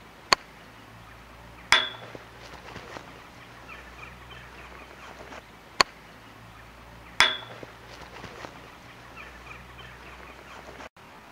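Two golf shots. Each is a sharp click of the club striking the golf ball, followed about a second and a half later by a loud metallic clang that rings on briefly as the ball hits the metal football goal frame.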